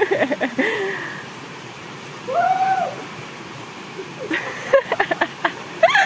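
A person's short hooting cry, one call that rises and falls, about two and a half seconds in. Short shouts and splashing follow near the end as a body slides off a rock into a pool, over the steady rush of a small waterfall.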